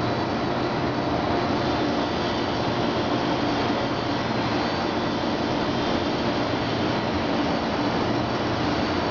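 Paint spray booth running while an HPD-355 disc atomizer sprays coating onto gas cylinders: a steady roar of moving air with a few faint, even hum tones underneath.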